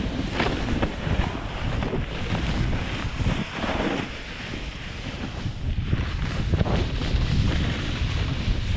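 Wind buffeting an action camera's microphone in a steady rumble, with skis scraping and crunching over chopped-up snow.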